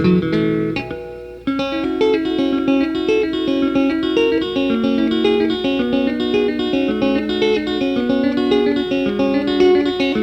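Background music of plucked guitar notes over a bass line, dipping briefly about a second in before carrying on.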